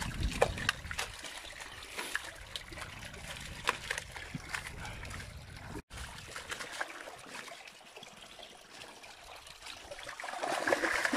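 Water trickling and dribbling, with scattered small splashes and faint taps.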